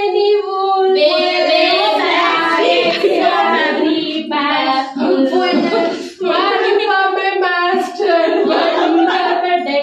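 A woman singing a song unaccompanied, in phrases with held notes and short breaks between them.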